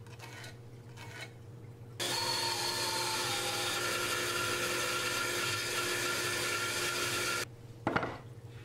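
Faint scratching of a pencil on wood, then about two seconds in a bandsaw cuts in abruptly, running steadily with a whine as it saws through a block of ambrosia maple, and cuts off abruptly near the end.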